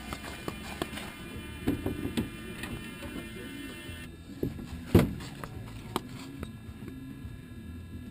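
Knocks, bumps and rubbing from hands working on a giant-scale RC Piper Cub's airframe right beside the mounted camera, with a few light clicks and one loud thump about five seconds in. Its engine is not running.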